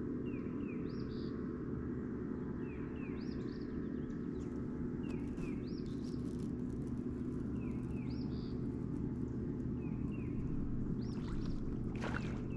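Steady electric hum of a bow-mounted trolling motor on a bass boat, with a bird calling a short, high two-part phrase about every two seconds. A few sharp clicks come near the end.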